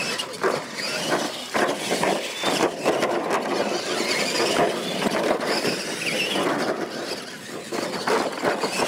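Two electric radio-controlled monster trucks racing on loose dirt: the motors whine, rising and falling in pitch as the throttle changes, over the churn of the tyres on the dirt.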